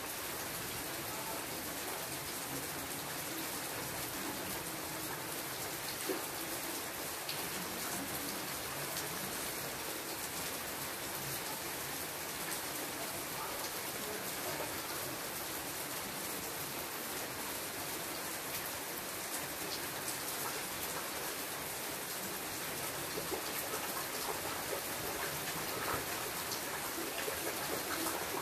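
Steady rain falling on shrub leaves: an even hiss with many small, scattered drop ticks.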